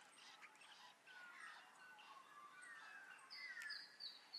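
Near silence with faint small birds chirping and twittering, a quick run of high repeated notes near the end.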